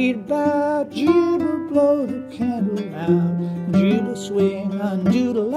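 Loon Goatar, a handmade guitar with a goatskin banjo-style resonator, played clawhammer (frailing) style in an open banjo tuning (gGDGDF): plucked notes and brushed strums in a steady rhythm, some notes sliding in pitch.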